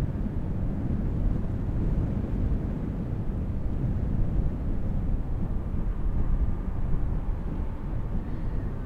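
Steady low rumble of the passing bulk carrier White Fin, mixed with wind buffeting the microphone.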